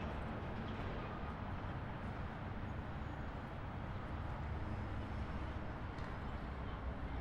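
Highway traffic: a steady, even rumble of tyres and engines with no single vehicle standing out.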